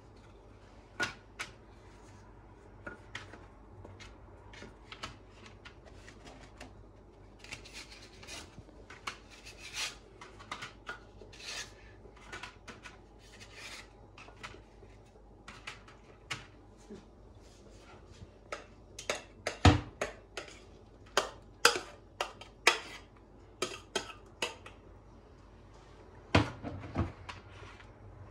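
A kitchen utensil clinking and scraping against cookware in irregular sharp clinks, thicker and louder in the second half, with the loudest knock about two-thirds through.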